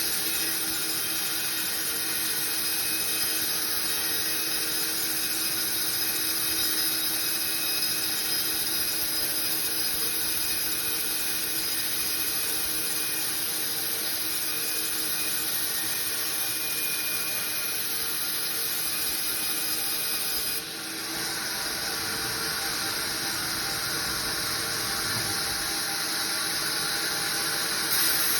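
Sawmill saw running steadily while cutting timber: a continuous machine whine with several held tones over a rushing noise. The sound changes abruptly about two-thirds of the way through.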